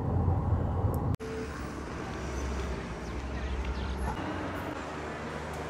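Steady rumble of car and road noise, cutting out briefly about a second in, then going on evenly.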